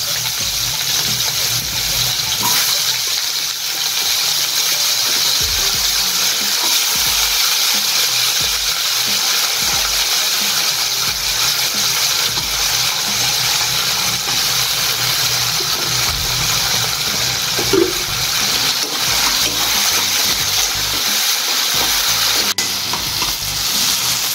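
Diced potatoes frying in hot oil in a kadai, a steady loud sizzle; a spatula stirs them near the end.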